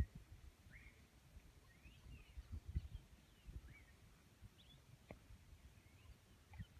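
Faint bird chirps: many short, quick up-and-down calls scattered throughout, over low thumps that are loudest about two and a half seconds in.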